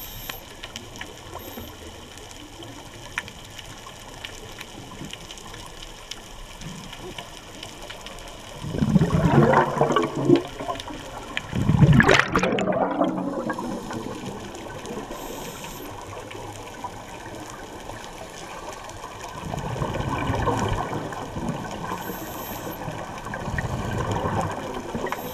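Scuba divers' exhaled bubbles from the regulator rushing and gurgling past the camera in bursts, loudest around nine and twelve seconds in and weaker around twenty and twenty-four seconds, over a steady underwater hiss with faint crackling.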